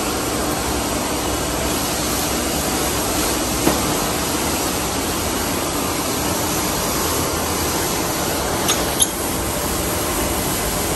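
Workshop machinery running steadily, giving an even rushing noise, with one light click about four seconds in and two more close together near the end.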